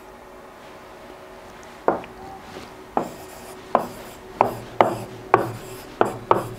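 A stylus pen tapping and scraping on an interactive whiteboard as numbers and letters are written stroke by stroke. There are about eight sharp taps, irregularly spaced, starting about two seconds in.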